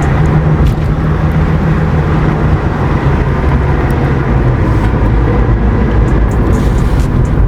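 Subaru Forester SG5 being driven on a road test: steady engine and road noise, with light sharp ticks now and then.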